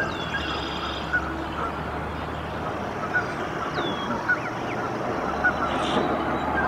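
Newly hatched Canada goose goslings peeping: twice a short, high call sliding downward, over a steady low rumbling background.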